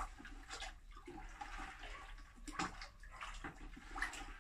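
Water sloshing and splashing in a basin as an unglazed stoneware pot is held in it to soak before glaze dipping, with a few sharper splashes among the irregular sloshing.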